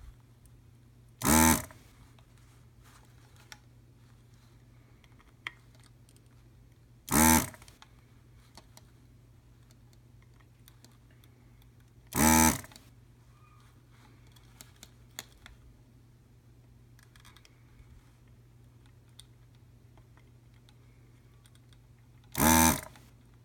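Vacuum desoldering iron's pump firing four times in short buzzing bursts, each about half a second long, sucking solder off the footswitch pads on a PC board. A low steady hum and small faint clicks lie between the bursts.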